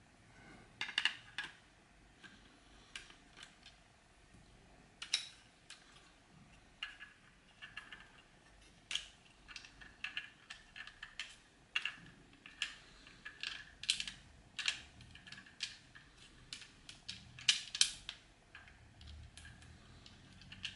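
Irregular light clicks and knocks of 3D-printed plastic toy parts being handled and fitted together by hand, with a few sharper taps among them.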